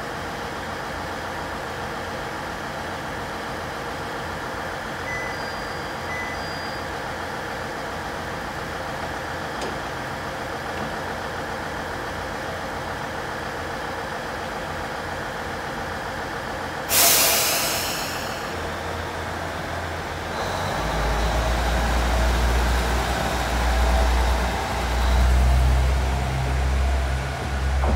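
JR KiHa 110 series diesel railcar idling steadily, then a sharp hiss of air as its brakes release about 17 seconds in. A few seconds later the diesel engine throttles up with a low rumble that rises and falls as the train pulls out.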